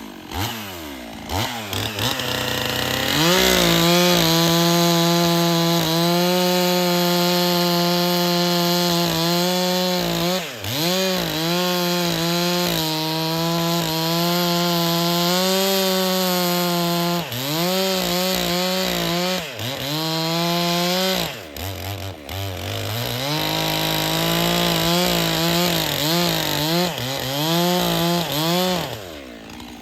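Stihl chainsaw revving up about three seconds in and running at full throttle through wood, its speed dipping several times under load. The chain is brand new out of the box and not cutting well.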